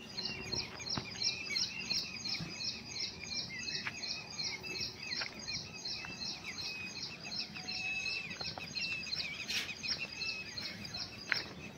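Birds chirping: one repeats a high note about four times a second, with softer twittering beneath it.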